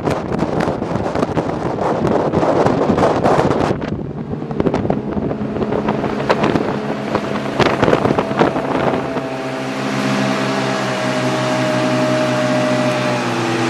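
Sea-Doo Speedster jet boat's engine running, with wind buffeting the microphone for the first few seconds. From about ten seconds in the wind drops and the engine settles into a steady drone.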